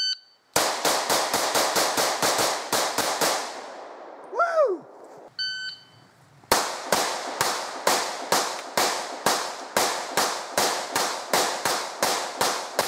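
Semi-automatic pistol fired in rapid strings: a quick burst of about a dozen shots, a pause with a short falling whine and a brief ringing tone, then a long steady string of shots about three a second.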